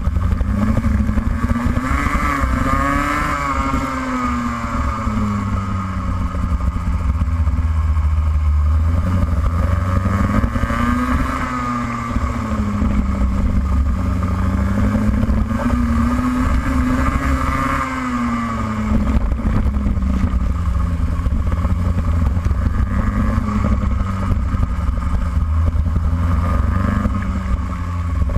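Racing kart engine heard onboard at high revs, its pitch climbing on the straights and dropping into the corners several times over.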